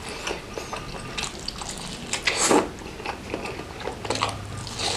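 Close-up eating sounds: biting into and chewing a dense, meat-filled bakso meatball soaked in spicy broth, with wet smacking and small clicks. A louder wet burst comes about halfway through.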